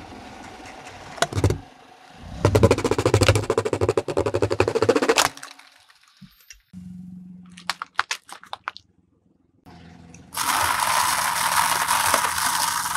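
Car tyre crushing objects: a plastic container crackles and crunches in a loud burst, and after a few sharp clicks the tyre grinds over dry instant noodles in a long, dense crunch.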